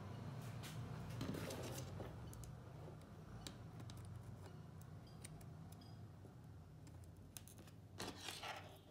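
Faint scattered clicks and small taps of hand soldering on a drone frame's power distribution board, over a low steady hum. A short, louder scratchy rustle comes near the end.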